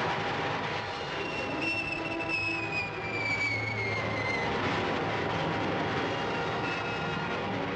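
Rocket flight sound effect from an old film soundtrack: a steady rushing roar. A high whine rides on top from about a second in, sliding down in pitch over three or four seconds.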